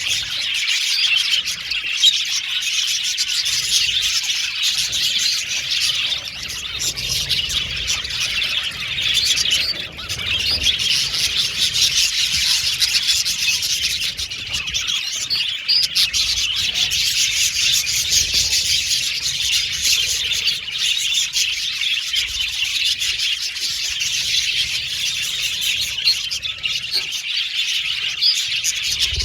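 A flock of budgerigars chirping and warbling continuously, many birds at once in a dense, unbroken chatter.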